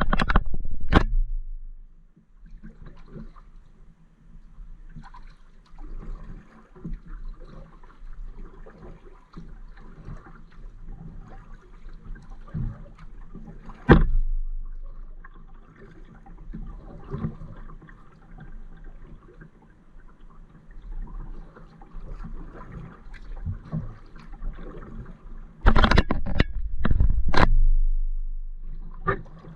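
Water dripping and lapping around a kayak as it is paddled, a quiet irregular trickling. Sharp knocks come about a second in, once in the middle, and in a loud cluster near the end.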